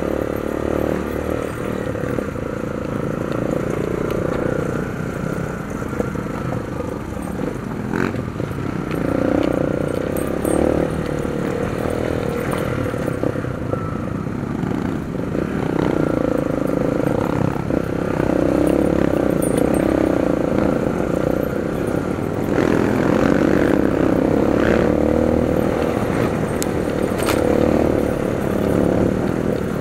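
Kawasaki KLX dirt bike's single-cylinder four-stroke engine running at low speed, the throttle opening and easing off in turns, with a few sharp knocks as the bike jolts over ruts.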